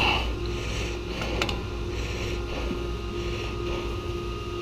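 Steady low mechanical hum with a faint steady tone above it, and a couple of light clicks about a second and a half in.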